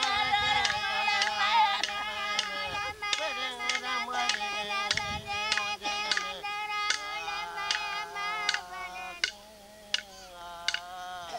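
Tiwi Kulama ceremony singing: voices holding long, wavering notes over a steady beat of sharp strikes, about two to three a second. About nine seconds in the singing drops to a softer, thinner line and stops at the end.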